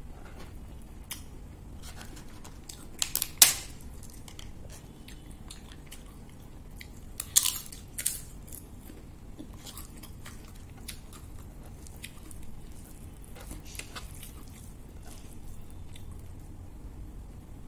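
Close-miked chewing of pork curry and rice, with crisp papad crunching in two loud bursts of crackles, about three seconds in and again around seven to eight seconds in.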